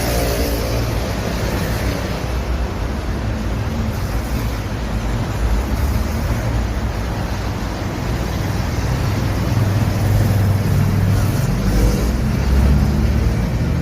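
Steady noise of urban road traffic, with a low engine rumble that swells about ten seconds in as a vehicle passes close.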